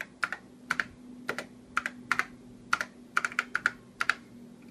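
Typing on an Apple IIe keyboard: about ten keystrokes at an uneven pace, many heard as a quick double click of press and release, over a faint steady hum.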